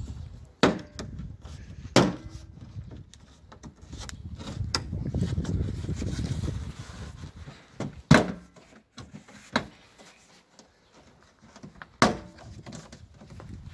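The brake light unit being pulled loose from the tailgate by hand: five or so sharp knocks spread apart, with a stretch of rubbing and rustling in the middle.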